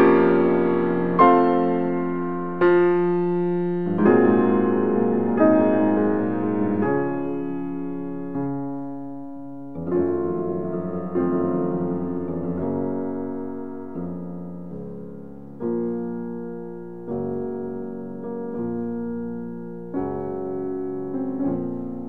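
Background music: slow solo piano, chords struck about every one and a half seconds and left to ring out and fade.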